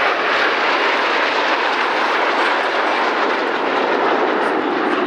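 Steady jet roar from a formation of Aermacchi MB-339 PAN jet trainers with turbojet engines, flying overhead.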